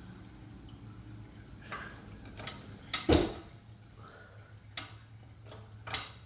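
A few scattered clicks and knocks over a low steady hum, the loudest a dull thump about three seconds in.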